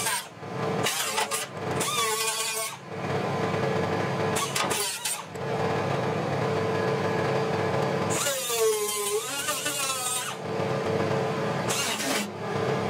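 Air-powered right-angle grinder with a 2-inch 36-grit sanding disc grinding down the extra flange on a steel fender patch. It runs in several passes with short breaks. About eight seconds in, its pitch dips and recovers as the disc bites into the metal.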